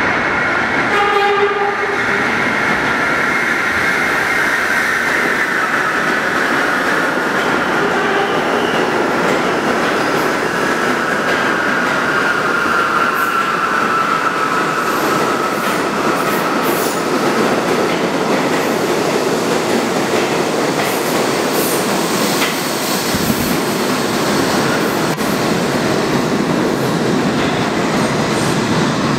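New York City subway train entering the station and running along the platform: a slowly falling electric whine over steady wheel-on-rail rumble and clatter, with a short horn note about a second in.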